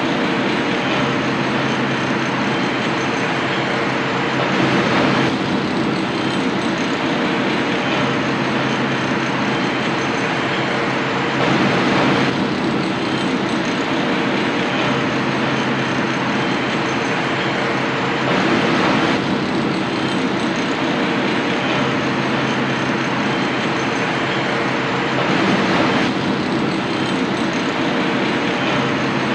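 Steady city ambience: a constant rumble and hiss with a low hum running under it, swelling briefly about every six to seven seconds.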